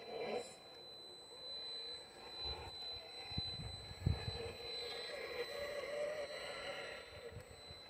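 RC crawler truck's electric drive motor whining, its pitch rising and falling with the throttle as it crawls. A few low thumps come about three and a half to four seconds in.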